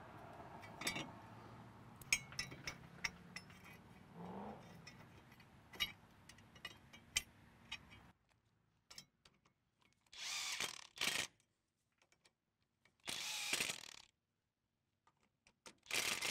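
Scattered metallic clicks and clinks as bolts and a steel chain roll plate are fitted by hand onto a corn head stalk roll. In the second half, a cordless DeWalt impact driver runs the plate bolts in with short bursts, each about a second long.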